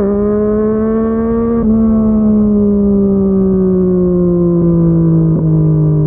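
Yamaha MT-09 inline three-cylinder engine through a Yoshimura R55 slip-on exhaust, heard from the rider's position while riding. The note breaks briefly twice, at the start and about a second and a half in, like quick gear changes. It then falls slowly and steadily as the bike runs down in speed.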